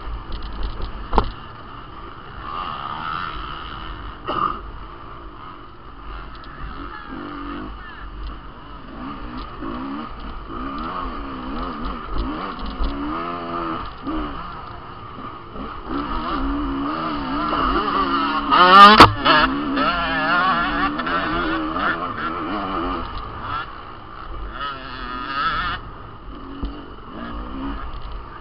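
Off-road dirt bike engine revving up and down as it is ridden hard over a rough trail, with scattered knocks from the bike and stones and one sharp, loud knock about two-thirds of the way through.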